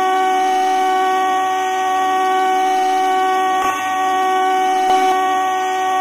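South Carolina Stingrays hockey goal horn, an air horn sounding one long, steady blast.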